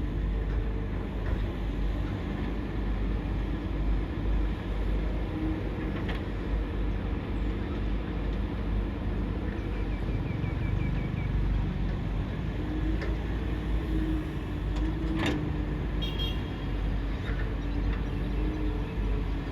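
Excavator engine running steadily at work, its pitch wavering a little, with a couple of sharp knocks of the machine.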